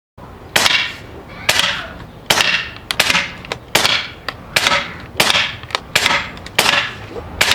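Umarex Gauntlet 2 PCP air rifle shots: about ten sharp cracks in quick succession, roughly one every 0.7 seconds, each trailing off with a short echo.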